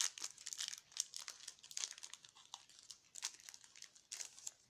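Foil wrapper of a Pokémon booster pack crinkling in the hands as it is worked open, a quick irregular run of crackles that dies away near the end.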